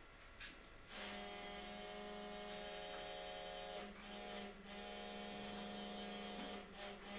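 A steady electric-sounding buzzing hum starts about a second in, holds one pitch, breaks off briefly twice around the middle and stops near the end.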